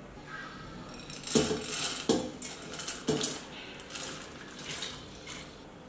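Wet, freshly rinsed split lentils being tipped and pushed by hand from a glass bowl into a stainless-steel pot. The grains slide and patter, and the glass knocks against the steel three times.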